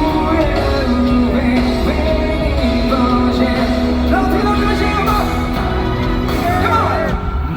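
Live rock band music played loud through a concert PA, with a voice singing sustained notes and sliding phrases over a heavy steady bass.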